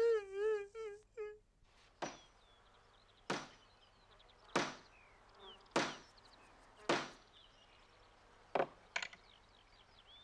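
A hammer drives nails through a wooden plank into a board door: seven sharp blows about a second apart, the last two close together. The first second holds the end of a loud, wavering wail that fades out, and faint bird chirps run underneath.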